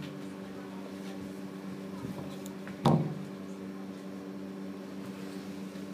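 Steady low electrical hum of several tones, like a household appliance running, with a single thump about three seconds in.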